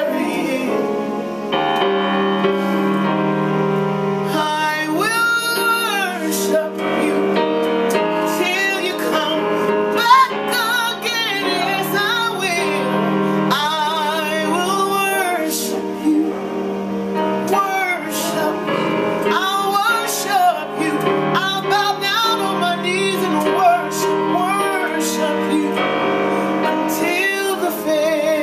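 A woman singing a slow gospel worship song, her voice sliding through runs, over sustained keyboard chords.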